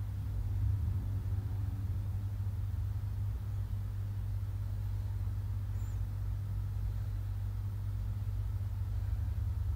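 Steady low hum with no other sound, deep and unchanging throughout.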